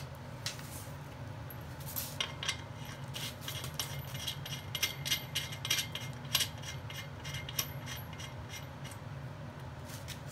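Irregular small metallic clicks and clinks of steel lug nuts being threaded by hand onto wheel studs to hold a brake rotor on its hub, coming in spells of several a second, over a steady low hum.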